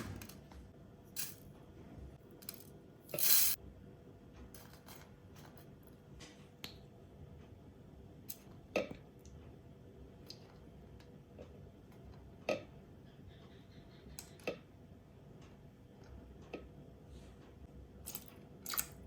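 Kitchen work noises: scattered clicks, knocks and clinks of utensils and dishes being handled, the loudest clatter about three seconds in, over a faint steady hum.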